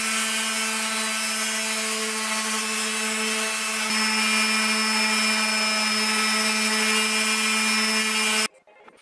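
Makita random orbital sander running on a mahogany board: a steady motor hum over the hiss of the sanding disc on the wood. It cuts off abruptly near the end.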